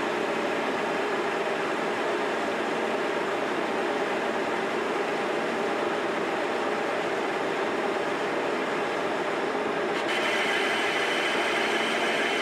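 Engine lathe running, its spindle turning the part while a turning tool takes a light finishing cut across the face, made dry without cutting oil. A steady mechanical hum, with a brighter cutting hiss joining about ten seconds in.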